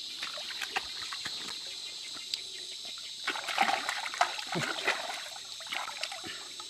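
Water splashing and sloshing in a shallow river as a speared fish is handled and struggles, in irregular bursts, loudest a few seconds in.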